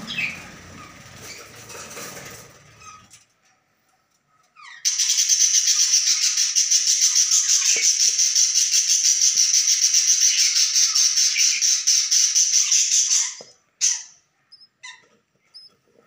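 Budgie chicks begging in the nest: a loud, high-pitched, rapidly pulsing chatter starts about five seconds in, runs for about eight seconds and cuts off suddenly, followed by a few short chirps. Before it, soft rustling in the nest bedding.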